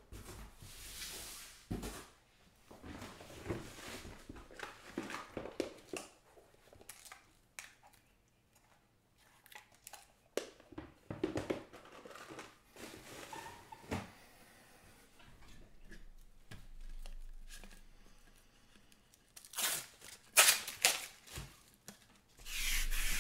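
Intermittent handling noises: rustling, crinkling and light knocks, with louder rustling near the end.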